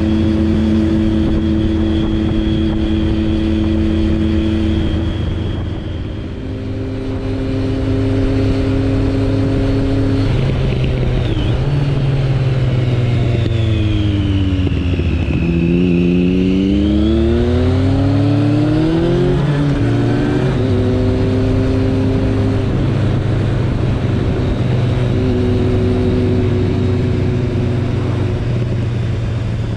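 Suzuki Bandit 1200's inline-four engine heard from the rider's seat, running at a steady cruise with wind and road noise. About halfway through, the engine pitch falls as the bike slows, then climbs again as it accelerates back to a steady cruise.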